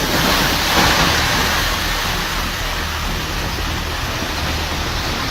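A loud, steady rushing noise without any distinct pitch or individual impacts, swelling slightly about a second in.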